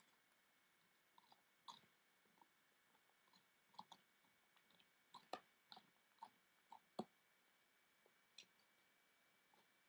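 A dog gnawing on a bone: irregular sharp clicks and crunches of teeth on the bone, with short pauses between.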